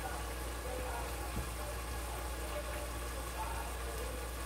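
Ground taco meat simmering in its juices in a pot on an electric stove, over a steady low hum.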